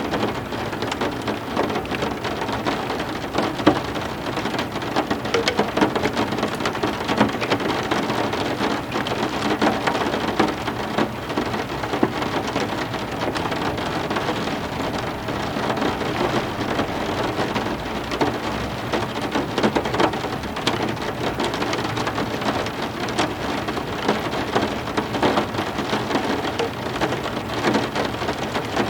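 Heavy rain falling steadily, with dense pattering of drops striking a surface.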